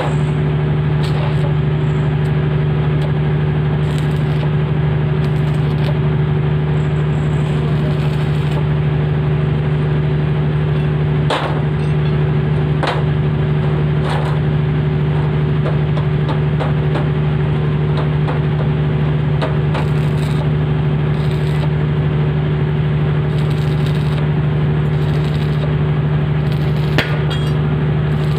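Arc welding: a steady loud hum with scattered sharp crackles and clicks.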